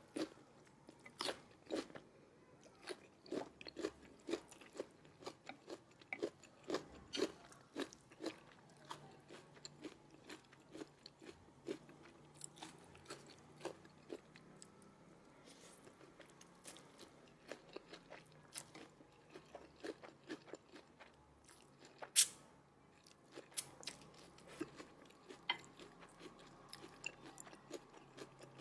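A person eating close to the microphone: chewing and biting with many short, clicky mouth sounds, thickest in the first half. One sharp, louder click comes a little past two-thirds of the way through.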